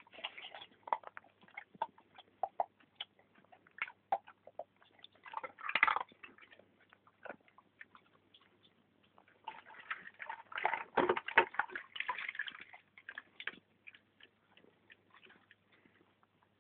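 A dog crunching and chewing pieces of crushed ice, in irregular crunches with louder bouts about six seconds in and again from about ten to thirteen seconds in.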